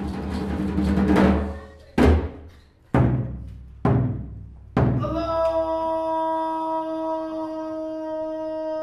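A drum roll on a large drum ends, followed by four single heavy drum strikes about a second apart, each ringing and dying away. About five seconds in, a struck gong starts ringing and holds a long, steady tone with many overtones.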